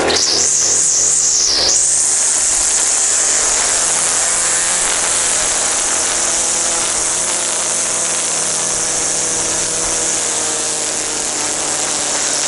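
Gas string trimmer running at high speed, its spinning line cutting the overgrown grass at the sidewalk edge. The pitch wavers for the first second or so, then holds steady.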